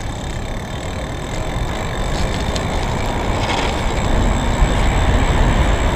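Electric bike with a BionX PL 350 direct-drive rear hub motor accelerating from a stop on throttle: a steady rush of wind and road noise that grows gradually louder as it picks up speed.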